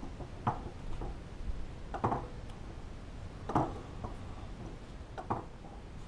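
Four light clicks about a second and a half apart, from hands handling a dial test indicator and rotary table setup on a milling machine table.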